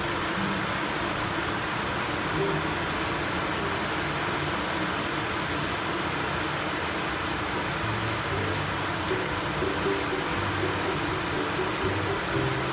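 Breadcrumb-coated chicken pieces frying in hot coconut oil over a high flame: a steady sizzle with fine crackles.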